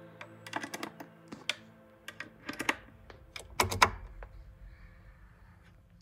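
Quarter-inch jack plugs clicking and clattering as they are handled and pushed into a pedal's jacks and a guitar amp's foot-control socket. Several clusters of sharp clicks, the loudest a little past halfway.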